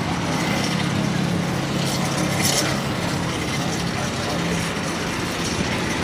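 A steady low motor hum under general background noise, with faint voices and a few light clicks and clinks.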